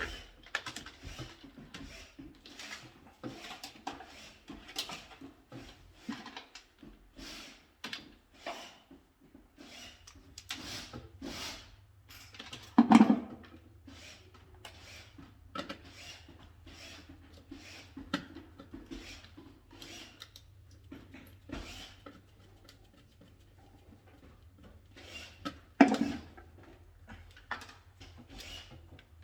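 Hand-wiring work on an electrical control panel: a steady run of light clicks, taps and rubbing as wires and small tools are handled, with two louder knocks, one about halfway through and one near the end.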